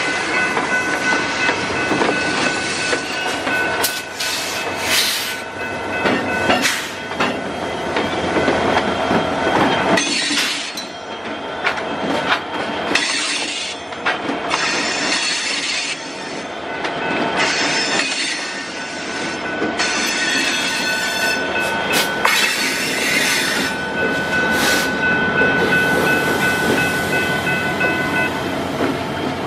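Freight train cars rolling past, wheels clicking over rail joints, with a high steady wheel squeal heard over the first several seconds and again later on.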